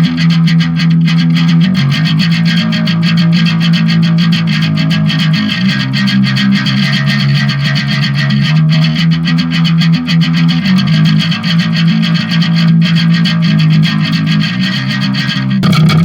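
Electric bass guitar played with heavy distortion, holding low sustained notes that change every second or two.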